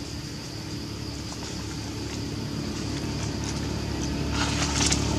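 An engine running with a steady low hum that grows gradually louder. A rustling noise joins near the end.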